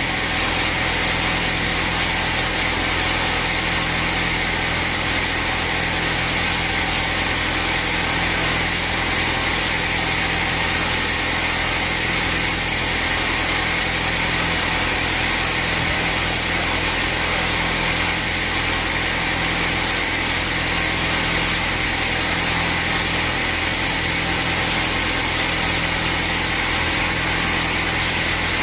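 Sawmill band saw and its drive running steadily: a continuous machine hum under a high, even hiss, with no change in pace.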